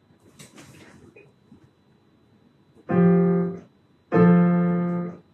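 Piano playing two chords about a second apart, each held briefly and then released sharply, after faint rustling and light knocks in the first second.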